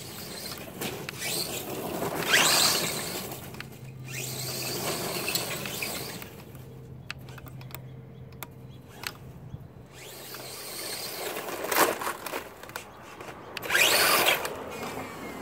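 Redcat Racing Caldera short-course RC truck driving on a lawn: its motor whines and its tyres scrub through dry grass, louder as it passes near and fading as it goes far off mid-way. Near the end it tumbles over close by with a loud scuffing clatter.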